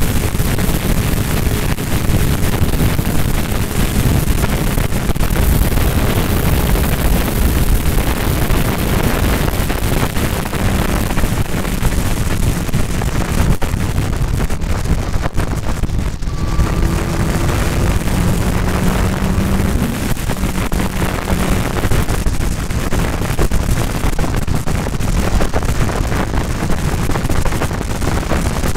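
Heavy wind buffeting on the microphone over a Kawasaki sport bike's engine pulling steadily at road speed. The engine note rises a little about halfway through.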